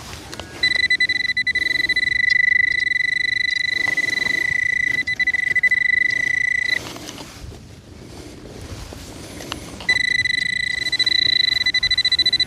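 Metal-detecting pinpointer giving a steady high electronic buzz while probed into the hole, meaning it is sitting on a metal target. It sounds for about six seconds, stops for about three seconds of soil rustling, then comes back on.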